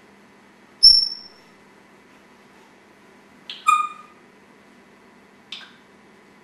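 African grey parrot calling: a sharp high whistle about a second in, a lower-pitched call with several overtones about three and a half seconds in, and a short click near the end.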